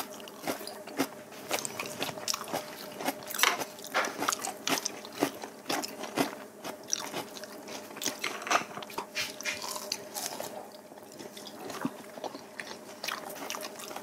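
Close-up eating sounds: bites, chewing and wet mouth clicks as people eat steamed kabocha squash with smoked duck, in quick irregular clicks throughout. A faint steady hum sits underneath.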